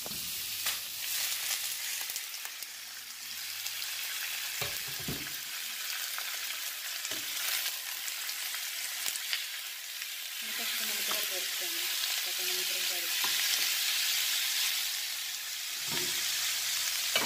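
Thin slices of beef sizzling loudly in very hot oil in a frying pan, stirred now and then, with a couple of knocks of a utensil against the pan about five seconds in and near the end.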